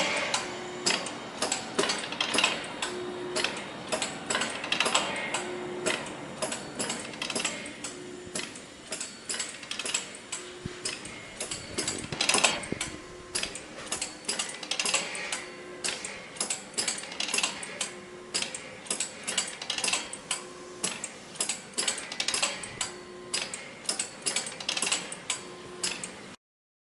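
Fully automatic dorayaki-making machine (AICHI Multi dora2) running its production cycle: a rapid run of mechanical clicks and knocks, with a short low hum that recurs every second or so. The sound cuts off suddenly near the end.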